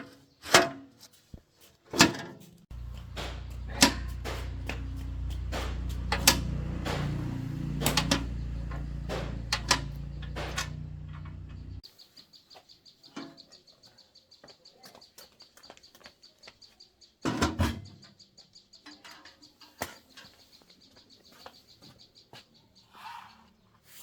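Electric motor of a banana slicer running with a steady low hum for about nine seconds, then cutting off suddenly. Clicks and knocks of handling come before it, and a faint high steady tone with rapid ticking follows.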